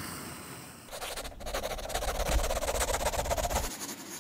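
Sound effects for a pencil-sketch logo animation. An airy whoosh fades over the first second, then fast pencil scribbling on paper runs for nearly three seconds over a low rumble, and eases off about a second before the end.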